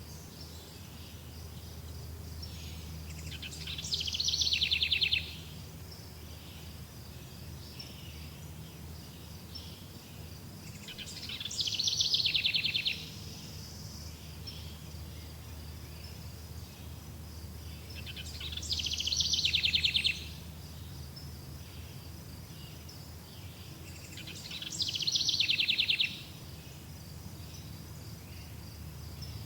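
A songbird repeating the same fast trilling song four times, each phrase about two seconds long, growing louder and then stopping abruptly. A steady high insect-like buzz and a low background hum run underneath.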